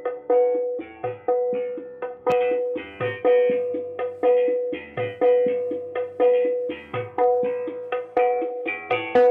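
Percussion-led music played at full volume through mid-high speakers driven by an RDW NR 8004 MK3 four-channel power amplifier under test, with a strong drum hit about once a second over a ringing tone and smaller hits between.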